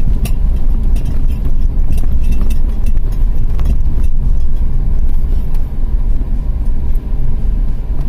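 Road and engine noise inside a moving car's cabin: a loud, steady low rumble.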